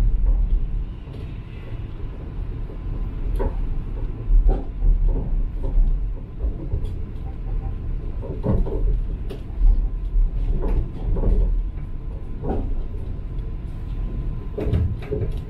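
Chiba Urban Monorail suspended car running, heard from inside the front of the car: a steady low rumble with irregular knocks and clunks every second or two, over a faint steady high whine.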